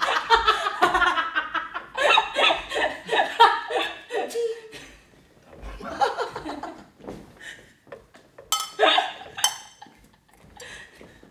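Three adults laughing hard together in loud belly laughs, strongest at first, then coming in weaker bursts that fade out toward the end.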